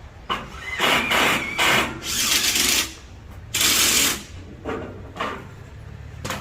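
Power drill running in several short bursts of about a second each, drilling into the ceiling to set anchors.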